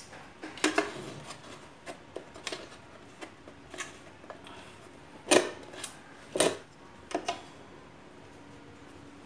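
Scattered knocks and clicks of hands handling a wooden rip fence and a steel ruler on the plywood top of a homemade table saw, with no motor running. The two loudest knocks come a little past halfway.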